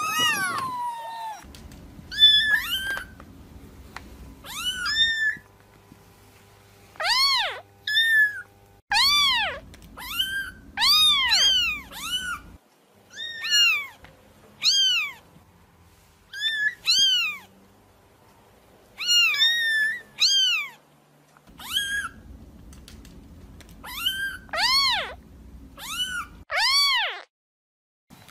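Kittens meowing over and over: about two dozen short, high-pitched meows, each rising and then falling, in quick runs with short pauses between them. These are kitten calls of the kind used to draw cats out to the source of the sound.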